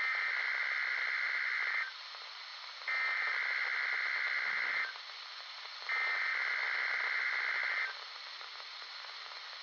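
NOAA Weather Radio station WWG53 sending its EAS SAME header for a Required Weekly Test: three identical two-second blocks of digital data tones, about a second apart, over steady radio hiss.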